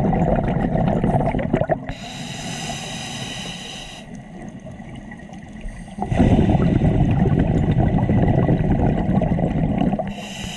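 A scuba diver breathing through a regulator underwater. A long bubbling exhale gives way about two seconds in to a hissing inhale, then a short lull, then another long bubbling exhale from about six seconds, and the next hissing inhale begins near the end.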